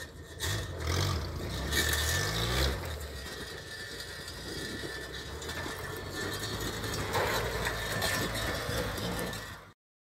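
Engine of an old tractor converted into an off-road buggy, running under load as it crawls over rough, rocky ground. It revs up and down in the first few seconds, then runs steadily, and the sound cuts off suddenly near the end.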